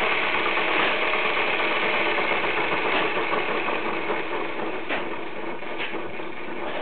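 Märklin 33961 H0 model steam locomotive (class 86) with an ESU decoder, running on a roller test bench: its electric motor and gear train give a steady mechanical whirr as the wheels and rods spin in place. A few faint clicks come through in the second half.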